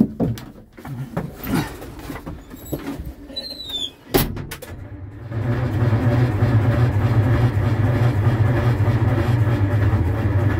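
A few knocks and a sharp click, then from about five seconds in the starter cranking the cold 1972 Detroit Diesel 6V53 two-stroke V6 over steadily, with starter fluid fed into its intake.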